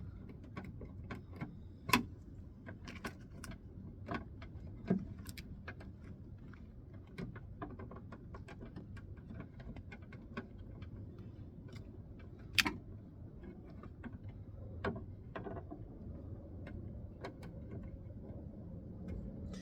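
Scattered light clicks and taps of hand tools and metal handle parts being handled and fitted, at irregular spacing, over a low steady hum. A sharper knock comes about two seconds in and another about twelve and a half seconds in.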